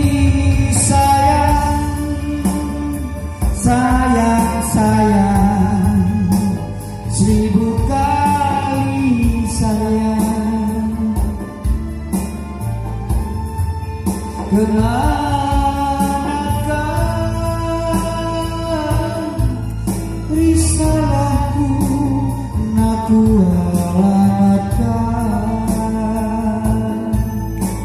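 A man singing a slow, melodic song into a microphone over backing music with a steady low accompaniment.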